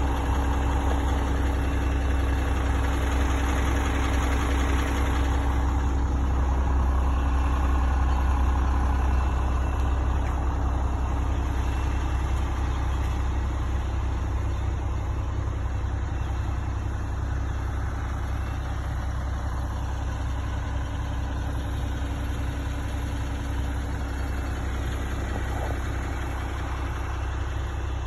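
Diesel engine of a concrete mixer truck idling steadily nearby, a constant low rumble that grows slightly fainter in the second half.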